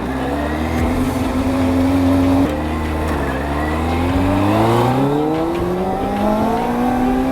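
Kawasaki ZZR400's inline-four engine pulling through the gears. The pitch holds, drops at a gear change about two and a half seconds in, then climbs steadily and drops again at another shift near the end.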